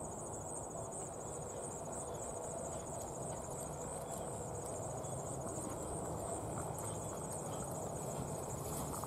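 Crickets trilling steadily in a high, continuous chorus. Faint hoofbeats of horses moving on grass come in near the end.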